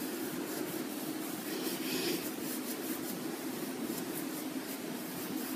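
Foundation brush blending liquid foundation and concealer over the skin of the face: soft, repeated scratchy brushing strokes over a faint steady hum.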